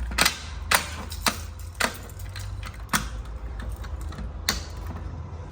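A series of sharp clicks and knocks, about six loud ones at irregular intervals, like hard parts being handled and snapped together, over a low steady hum.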